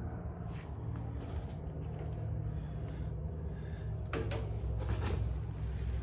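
Handling noise as a corded electric blower and a heater air filter are picked up: a few short knocks and rustles about four and five seconds in, over a steady low rumble. The blower is not running.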